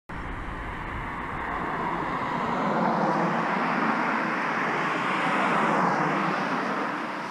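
River water rushing through whitewater rapids, a steady hiss that swells for a few seconds in the middle and eases again near the end.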